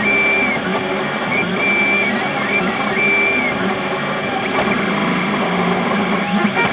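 XYZ da Vinci Mini W+ 3D printer printing: a steady mechanical whirr from its motors, broken by short high stepper-motor whines that change pitch as the print head moves, several in the first few seconds.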